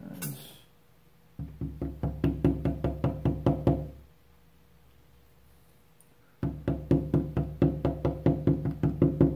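Rapid, regular knocking, about six or seven blows a second, in two runs of a few seconds each, as a blue-handled tool drives a wooden pin through the hole of a laser-cut plywood ring. A brief rustle of handling comes just before.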